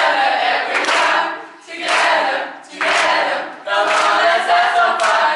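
A large group of young people singing together in unison, loud phrases about a second long with short breaks between them.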